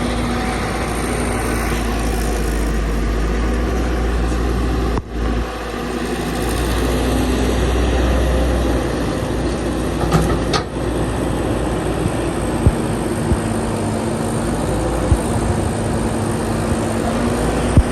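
Excavator's diesel engine running steadily with a deep rumble, briefly dropping out about five seconds in. A few short knocks or clanks come in the second half.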